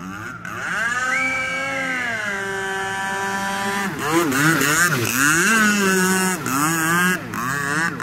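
Radio-controlled speedboat's motor running hard as the boat speeds across the water. Its pitch rises, holds, then falls, followed by several quick rises and falls as the throttle is worked.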